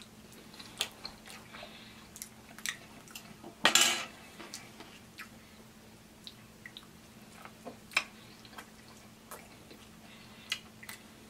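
Close-miked eating sounds: chewing and mouth clicks over mac and cheese and fried chicken, with scattered sharp clicks like a fork touching the food. One louder noisy burst comes about four seconds in.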